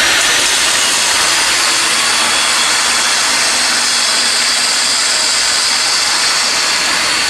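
Angle grinder grinding the steel motorcycle frame: a loud, steady hiss with a faint high whine from the spinning disc.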